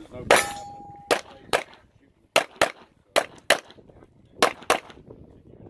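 Handgun shots fired in quick pairs: a single shot with a short ringing tone after it, then four double taps, each pair about a quarter second apart with roughly a second between pairs.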